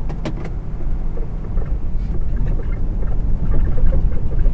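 Steady low engine and road rumble heard inside a truck cab creeping along an icy, snow-covered road, with a couple of sharp clicks about half a second in and light rattles throughout.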